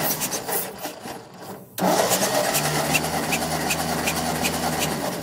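Ford 8N tractor's four-cylinder flathead engine cranked over without firing, for a compression test: it has no spark and no fuel. Two spells of cranking, the first stopping about a second in and the second starting about two seconds in, each with an even chugging rhythm of compression strokes.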